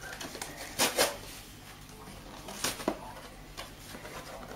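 A cardboard toy box being pulled and torn open by hand. There are short rips and rustles of card, two about a second in and two more near three seconds.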